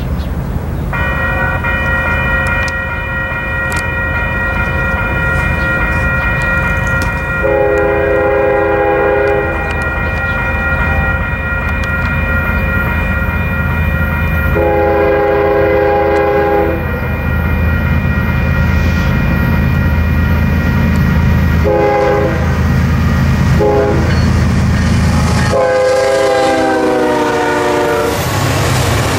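Diesel freight locomotives rumbling past with a steady high whine over the engine, while a locomotive air horn sounds two long blasts, two short ones and a final long blast that drops in pitch as the locomotive passes.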